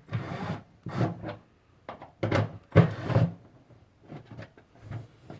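Scraping and rubbing with a few knocks, one sharp knock near the middle, as sheet-metal parts of a galvanized trash-can feeder are pushed and shifted back into place.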